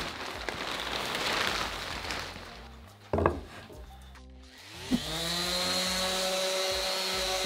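Rustling and a knock about three seconds in, then an electric random-orbit sander starts up about two seconds later, its whine rising and settling into a steady run as it sands the wooden tray with 220-grit paper.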